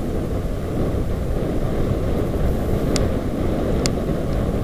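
Wind buffeting the microphone and mountain bike tyres rolling over a dirt trail on a fast downhill run, a steady low rush. Two short sharp clicks, about a second apart, come from the bike near the end.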